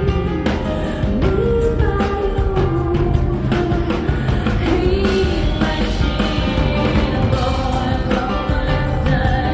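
Live rock performance: a woman singing over a band with a steady drum beat.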